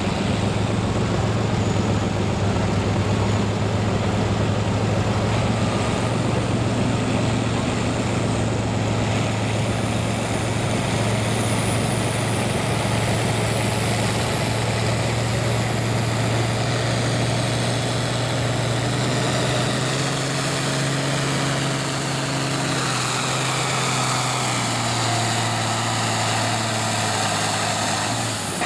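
International Harvester diesel farm tractor pulling a weight-transfer sled under load, its engine running steadily throughout. About two-thirds of the way through the engine note changes as the load builds.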